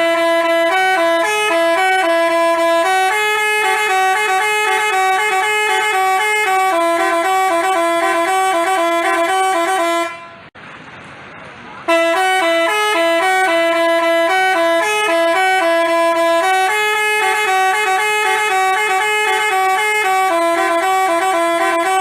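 Basuri telolet bus horn playing a melody in quick stepped notes. The tune breaks off for about a second and a half near the middle, then plays on.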